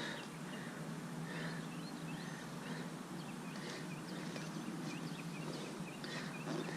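Quiet outdoor background with scattered faint, short bird chirps over a steady low hum.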